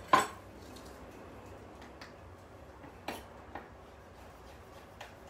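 Chef's knife knocking on a wooden cutting board while slicing a red chili pepper: a sharp knock just after the start, then a few softer, scattered knocks.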